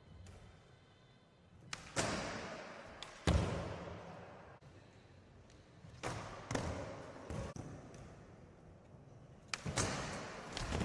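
Skateboard wheels rolling on a wooden skatepark surface, broken by several sharp clacks and slams as the board pops and lands on a wooden box. Each hit echoes in a large hall. The loudest hits come about three seconds in and near the end.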